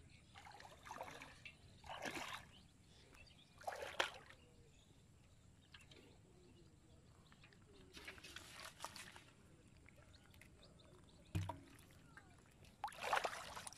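Shallow water sloshing and splashing in about five short bursts as a fishing net is pulled through it and a man wades, with one dull knock shortly before the last burst.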